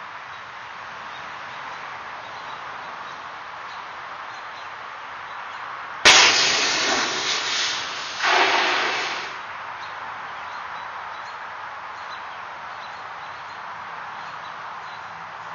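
Cease Fire CFP 1700 automatic fire suppression unit discharging over Class B pan fires. A sudden loud blast about six seconds in turns into a hissing rush for nearly two seconds, then a second burst dies away after about a second. A steady, fainter rush runs underneath throughout.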